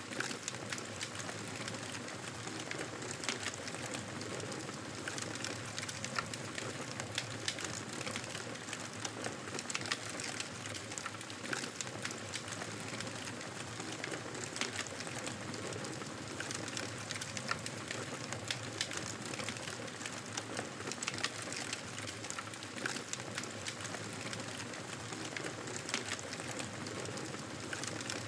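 Campfire burning: a steady hiss of flames with frequent sharp crackles and pops from the burning wood.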